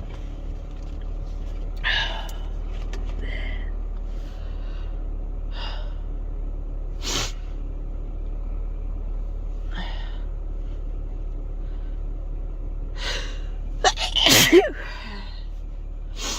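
A person sneezing in a car. Several short, quieter breathing sounds come first, then one loud sneeze near the end, over the car's steady low rumble.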